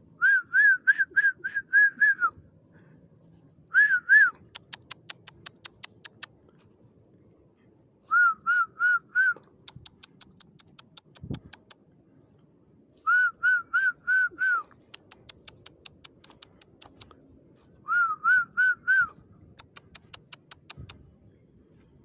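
Trucukan (yellow-vented bulbul) call: bursts of five to seven quick, clear whistled notes in about two seconds, repeating roughly every five seconds. Each burst is followed by a run of rapid thin ticks.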